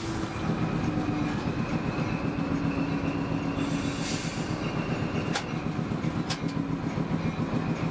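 Passenger train rolling slowly along the rails: a steady rumble with a faint high wheel squeal, and a couple of sharp clicks from the track about two thirds of the way in.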